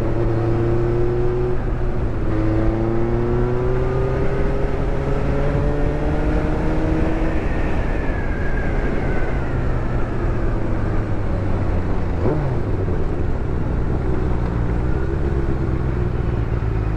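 Benelli 600GT's inline-four engine with an aftermarket exhaust, heard from the saddle under way, with wind noise. The engine note climbs steadily for several seconds as the bike accelerates, then falls away as it eases off.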